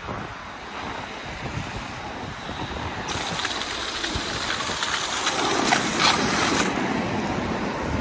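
A car passing close on a wet road, its tyre hiss swelling to a peak about six seconds in and then fading, over the steady rolling of inline skate wheels on wet asphalt.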